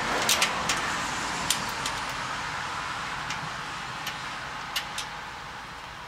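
A car passing on the road, its tyre and engine noise swelling about a second in and then fading away. A few light metallic clicks from bolts and washers being handled sound over it.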